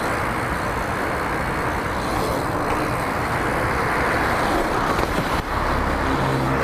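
Steady rushing road noise of a BMX being ridden along a street: tyres rolling on asphalt, with road traffic around. Near the end a low steady hum of a vehicle engine joins in.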